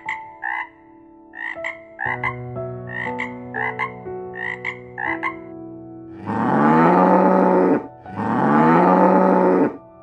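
A frog croaking in a run of short calls, about two a second. About six seconds in come two long, loud bison bellows, each about a second and a half. Soft background music with held notes runs underneath.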